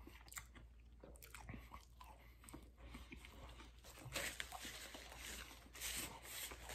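A man chewing a mouthful of food, with soft wet mouth clicks and smacks. Near the end a paper napkin rustles as he wipes his mouth.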